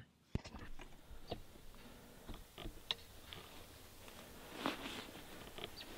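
Faint scattered clicks and scuffs of a person moving about on foot, with a slightly louder scuff about four and a half seconds in.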